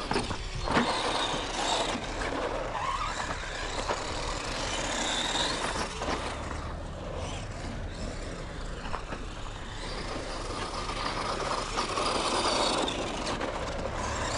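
The brushed electric motor and gears of an Arrma Fury Mega 550 RC short course truck whine, rising and falling as it speeds up and slows, over a steady rush of tyres on loose dirt. A sharp knock comes just under a second in.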